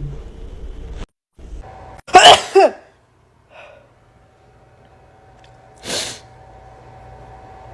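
A person sneezing: one loud, voiced sneeze in two quick bursts with a falling pitch about two seconds in. A shorter, fainter burst of breath comes near the end.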